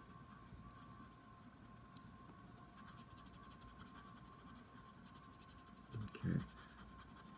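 Coloured pencil scratching faintly on paper in quick light strokes, shading blue along a map's coastline. A short louder low sound about six seconds in.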